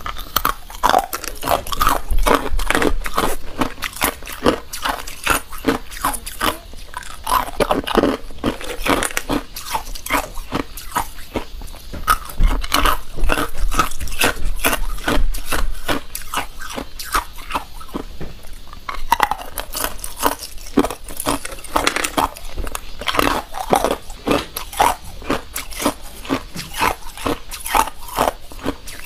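Clear, hard ice cubes being bitten and crunched between the teeth: a dense run of sharp cracks and crunches, several a second.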